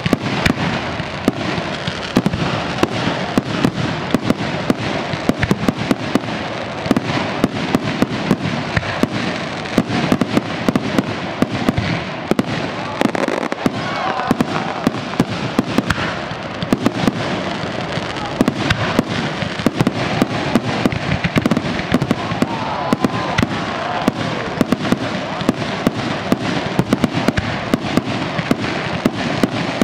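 Aerial fireworks bursting in a dense, continuous barrage, with sharp bangs and cracks coming several times a second throughout.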